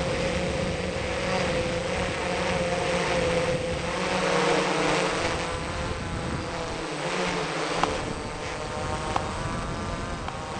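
Small camera drone's propellers buzzing steadily in flight, a constant hum with rough noise underneath.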